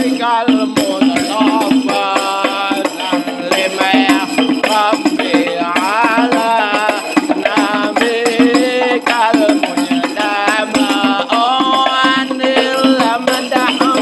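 Qosidah (sholawat) music: an ornamented, wavering melody over steady hand percussion.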